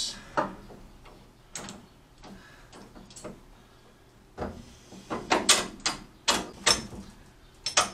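Irregular metal clicks and clinks of the steering arm and its bolts being fitted against the front spindle bracket. They are sparse at first, then come as a quicker run of sharper clicks from about four and a half seconds in.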